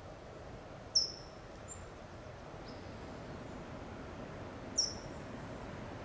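California towhee giving sharp, high "tsip" call notes: two loud single chips about four seconds apart, with a couple of fainter notes between, over a steady low background hiss.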